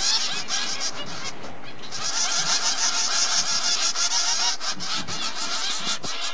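A brood of finch nestlings begging in the nest, a continuous high, raspy chorus of chittering calls that eases briefly between about one and two seconds in.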